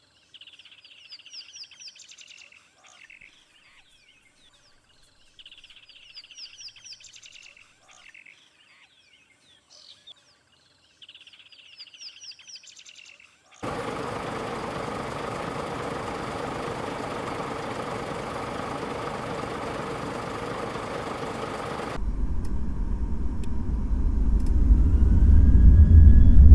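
A bird singing the same short phrase of high, rising chirps three times, about five seconds apart. Midway this cuts abruptly to a steady hiss-like noise, and then a low rumble comes in and grows louder toward the end.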